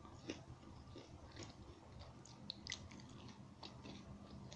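A bite into a piece of yangnyeom-sauced boneless Korean fried chicken, then faint chewing with a few small, scattered crunches.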